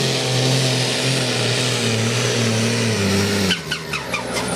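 Fendt farm-class pulling tractor's diesel engine running flat out under the load of the weight sled, its pitch sagging slightly, then dropping off abruptly about three and a half seconds in as the pull ends.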